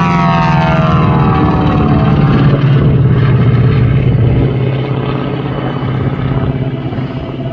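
Twin radial engines of a 1943 Beech 18 (Pratt & Whitney R-985 Wasp Juniors) running at power in an airshow climb. The drone drops in pitch over the first couple of seconds, then holds steadier and grows a little quieter about halfway through.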